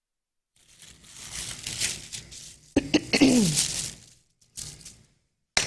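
Paper rustling and crinkling as it is handled, broken by a sharp click about three seconds in and a brief throat-clear with falling pitch.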